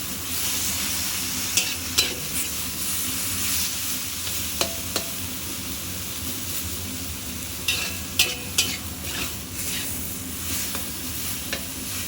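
Eggplant sizzling as it fries in a hot pan while a spatula stirs and scrapes it, with scattered sharp clinks of metal against the pan.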